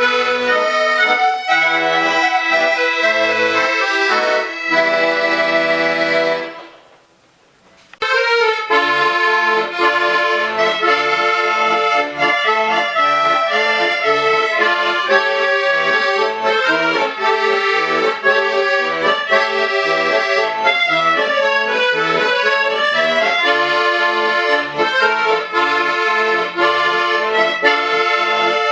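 An accordion ensemble playing a lively piece in many parts with quickly changing notes. About six seconds in, the music stops briefly and dies away, then starts again.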